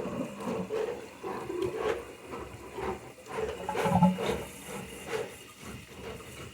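Water sloshing and splashing in a toilet tank as it is worked by hand, with irregular knocks and splashes. The water keeps running because the new flapper is not seating.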